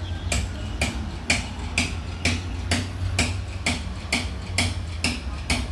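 Regular ticking, about two sharp clicks a second, over a steady low rumble.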